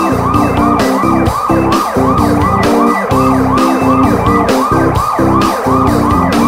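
A siren yelping, sweeping up and down about three times a second, over electronic music with a steady beat.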